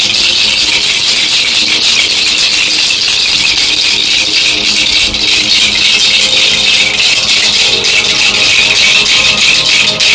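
Continuous, fast rattling of a hand-shaken ASMR rattle, a dense steady hiss of tiny clicks with no breaks.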